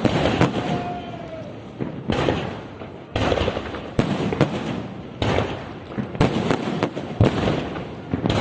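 Fireworks salute: a string of sharp bangs about once a second.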